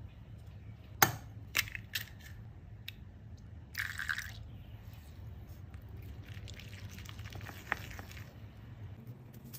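Wooden chopsticks clicking against a ceramic bowl as they dig a well into cooked white rice, a short pour of mirin about four seconds in, then the chopsticks stirring egg yolk quickly through the rice, with a rapid scratchy clatter. A low steady hum sits underneath.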